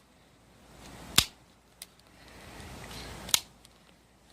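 Double-action mechanism of a non-firing replica pistol being dry-fired: two sharp metallic clicks about two seconds apart, each followed a moment later by a fainter click.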